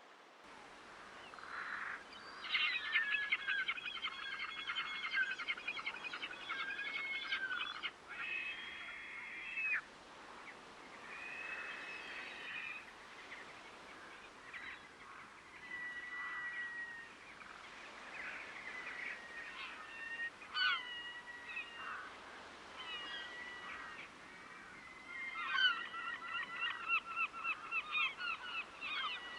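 A flock of waterbirds calling with honking calls. There is a dense run of rapidly repeated calls from about two seconds in, scattered single calls through the middle, and another dense run near the end.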